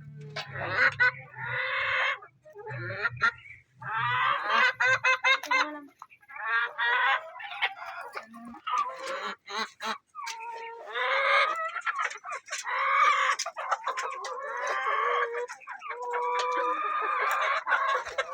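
Domestic hens clucking and calling, a string of overlapping calls that come in short bursts, with scattered sharp clicks between them.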